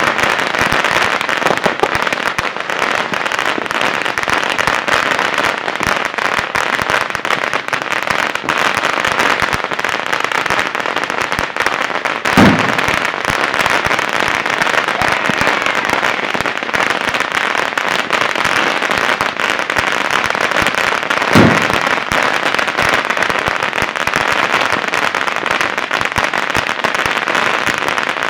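Strings of firecrackers going off in a dense, continuous crackle, with a louder bang about twelve seconds in and another about twenty-one seconds in.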